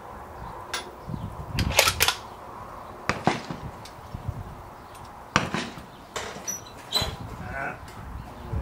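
Rifle shots from other lanes on a firing line: several sharp cracks a second or two apart, mixed with lighter clicks.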